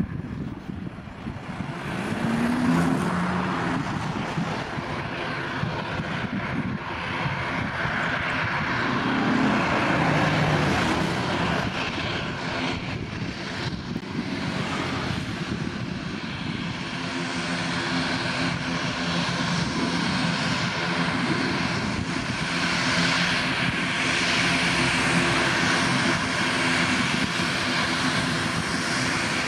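ATR 72-600's twin turboprop engines with six-bladed propellers at low taxi power, a steady propeller drone. Its pitch briefly rises and falls a couple of times, and it grows slowly louder as the aircraft taxis closer.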